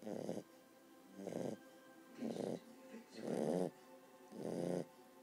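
A puppy snoring in its sleep: five snoring breaths, about one a second.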